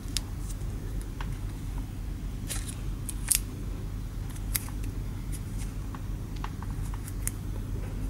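Fingers handling and pressing black electrical tape around a USB cable, giving scattered small crackles and clicks, the loudest a little past halfway through the first half. A steady low hum runs underneath.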